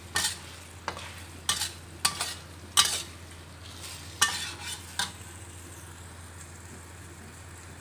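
Metal spatula scraping and tossing food in a stainless steel wok, about six strokes in the first five seconds, over a low frying sizzle; after that only the sizzle continues.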